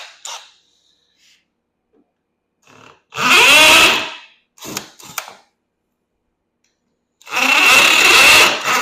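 Power drill running in two bursts of about a second and a half each, with a couple of short blips between, its motor speed rising and falling.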